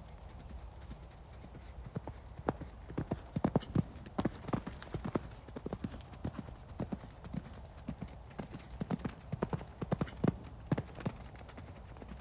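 Hoofbeats of a horse cantering on gravel arena footing, in quick groups of strikes. They start about two seconds in and come and go in loudness as the horse passes near and away.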